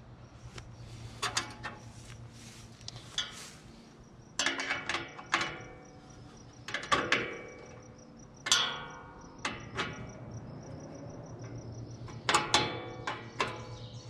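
Irregular metal clinks and clanks, some ringing briefly, as a steel hook is bolted with nuts and washers onto the sawmill's steel blade-housing door. Insects chirp faintly and steadily behind it.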